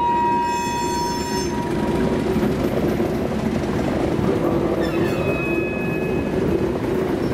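Loaded narrow-gauge gypsum hopper wagons rolling past with a steady rumble, with a high wheel squeal that fades out in the first second or so and another squeal starting about five seconds in.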